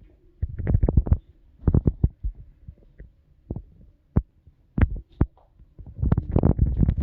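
A dog hiccuping: short sharp hics, each with a low thump. Some come in quick clusters and others stand alone, and they crowd together near the end.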